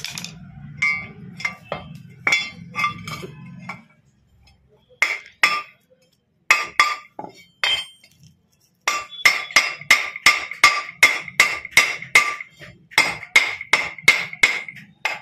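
Hammer striking steel gearbox parts, each blow ringing. A few scattered taps come first, then from about nine seconds a steady run of blows at roughly three a second.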